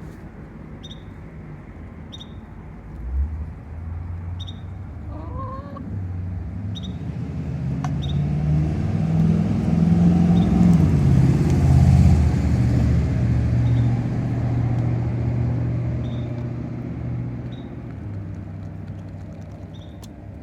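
A motor vehicle passing by: its engine hum grows louder to a peak a little past halfway, then fades away. Over it a short high chirp repeats about once a second, and a chicken gives a brief wavering call about five seconds in.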